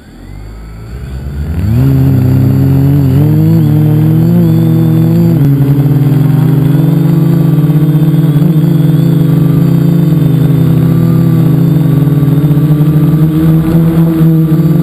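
Multicopter's electric motors and propellers spinning up over about two seconds, then holding a loud, steady buzz with small wavers in pitch, heard close up from a camera on the craft.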